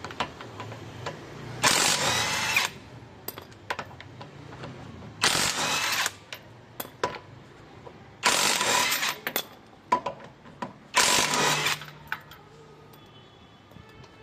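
Electric power tool undoing the wheel bolts in four bursts of about a second each, with clicks and knocks of the socket being set on each bolt in between.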